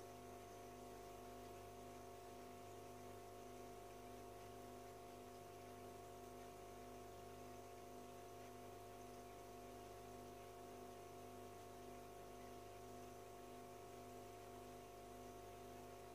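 Faint, steady electrical hum of the aquarium's filter motor, a low hum with several steady higher tones over a soft hiss; otherwise near silence.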